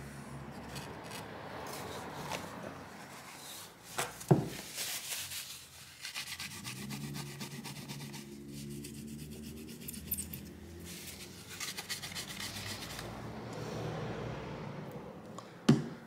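A cloth rubbing and scrubbing old thermal paste off a graphics card's GPU die, in quick back-and-forth strokes, with one sharp tap about four seconds in.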